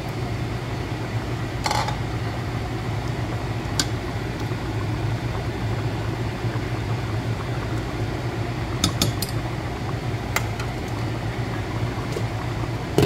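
Coconut-milk broth boiling in a stainless steel pot under a steady low hum. A few sharp clinks of a metal ladle and bowl against the pot come scattered through, with a quick cluster of them about nine seconds in.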